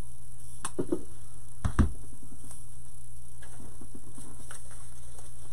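A few light clicks and knocks from handling craft decorations on a work table, the loudest about two seconds in, with faint rustling, over a steady low electrical hum.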